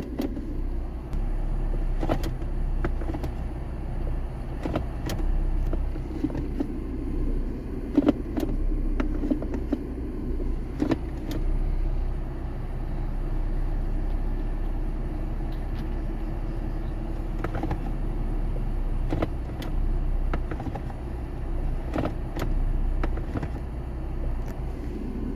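Mercedes-Benz E230 engine idling steadily, with scattered short clicks and knocks over it.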